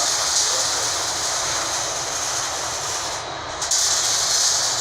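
Newly installed exhaust ventilation fan running, a steady rush of air; the hiss dips briefly about three seconds in, then comes back louder.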